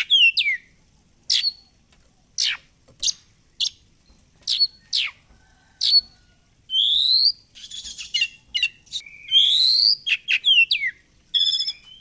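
Oriental magpie-robin (kacer) singing a varied song of loud, sharp falling whistles and upward-sweeping notes with short gaps between them. There is a scratchy, buzzy phrase about eight seconds in and a fast trill near the end.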